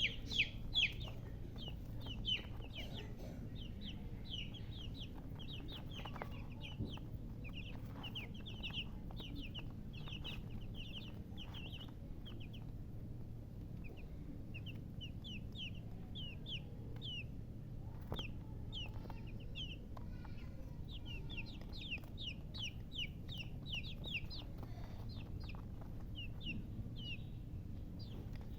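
Baby chicks peeping: rapid, short, high chirps that each fall in pitch, several a second, thinning out for a couple of seconds about halfway through, over a steady low rumble.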